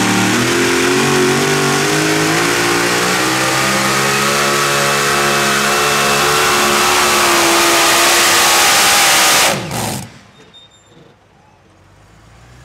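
Pulling vehicle's engine running loud at high revs, its pitch creeping slightly upward, then cutting off abruptly about nine and a half seconds in, leaving only faint background.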